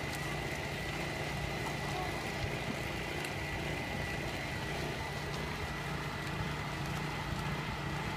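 Steady machine drone: a low hum with a constant high-pitched whine over it, unchanging throughout.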